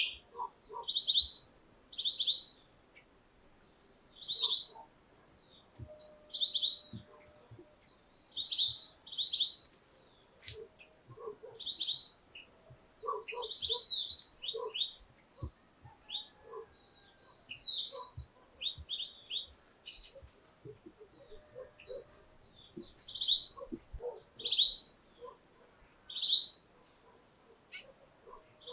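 Birds chirping: short, high chirps, often in quick pairs, repeating every second or two.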